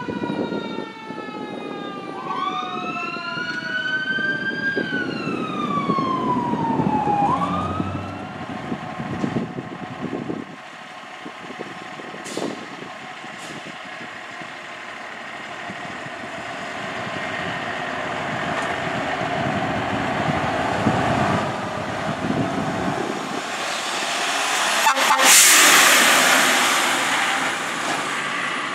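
Fire engine's electronic siren sweeping up and down in a slow wail over the truck's diesel engine for the first several seconds. After that the fire apparatus engine runs and builds, with a loud rushing burst near the end.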